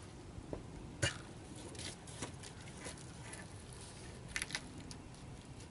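Wooden poles and logs being handled and set down, giving scattered knocks of wood on wood: a sharp knock about a second in, a few lighter ones after it and a quick cluster near the end as a log is laid onto the log wall.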